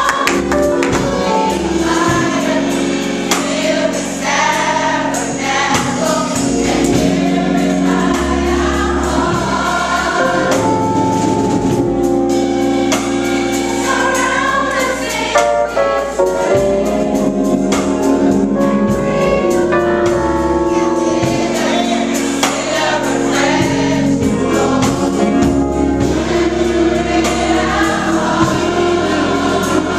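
A youth gospel choir singing in full voice with a live band, drums and cymbals keeping a steady beat under sustained low notes.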